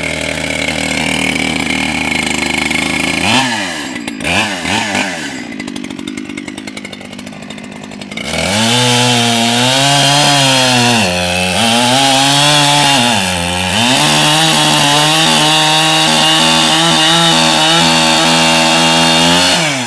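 Echo CS-7310P two-stroke chainsaw idling, blipped a few times, then run at full throttle through a cut in wood; its pitch sags twice under load and recovers before the cut ends.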